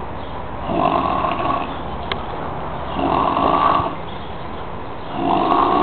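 Snoring in sleep: three snores about two and a half seconds apart, each lasting close to a second.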